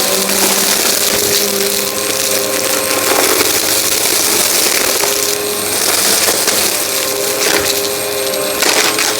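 Vacuum cleaner running steadily while sucking up debris on a test mess, with scattered clicks and rattles of bits going up the nozzle.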